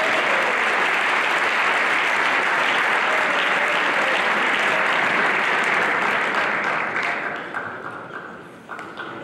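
Audience applauding, loud and steady for about seven seconds, then dying away.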